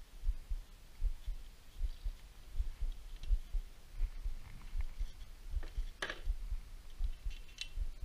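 Small metal engine parts being handled: a sharp metallic click about six seconds in and a short ringing clink near the end. Soft low thumps repeat irregularly, a few a second, throughout.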